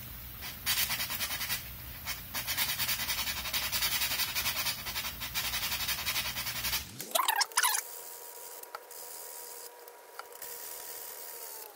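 Coarse 120–140 grit sandpaper rubbed by hand in quick back-and-forth strokes on the inside of a plastic dome, scuffing the surface to give the glue some teeth. The strokes stop about seven seconds in.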